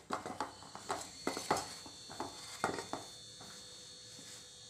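Hand mixing dry flour, gram flour and chopped fenugreek leaves with oil in a stainless steel bowl: irregular soft scrapes and taps against the bowl for about three seconds, then only a faint steady hiss with a thin high whine.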